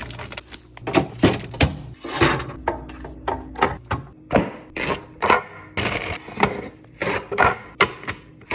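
Groceries and plastic storage containers being handled and set onto fridge shelves: an irregular string of clacks and knocks, some in quick runs of two or three.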